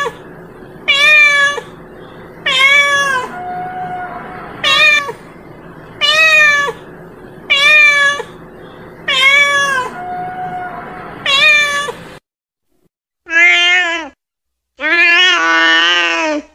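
Domestic cat meowing repeatedly: short meows that rise and fall in pitch, about one every second and a half, with a softer chirp between some of them. After a brief break near the twelve-second mark come two longer, lower meows, the second one drawn out.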